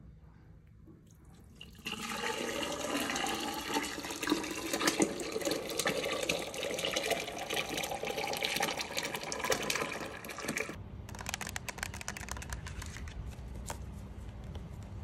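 Thick liquid casting slurry pouring from a plastic bucket into a mould inside a plastic bin: a loud, gurgling, splashing pour that starts about two seconds in and runs for about nine seconds, then stops abruptly.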